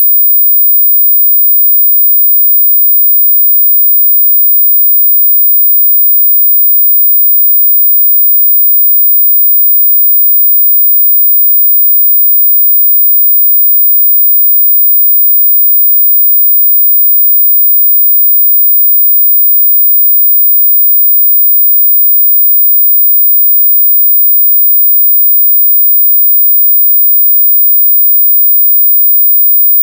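A single very high-pitched steady tone played as a dog whistle, loud and unwavering.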